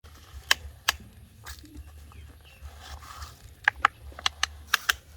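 A series of sharp, irregular clicks and knocks, several in quick pairs, like small hard objects striking one another, over a low steady hum.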